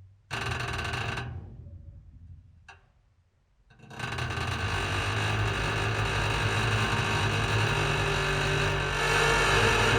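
Old rusty railway turntable's metal structure groaning: a sudden deep metallic groan that fades out over about three seconds, with a short creak near its end. About four seconds in, a long, steady, deep metallic drone begins and holds.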